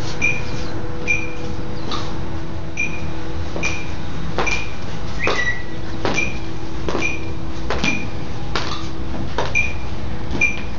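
Footsteps of a color guard marching in step in dress shoes on concrete: sharp, evenly spaced footfalls a little under a second apart, over a steady hum.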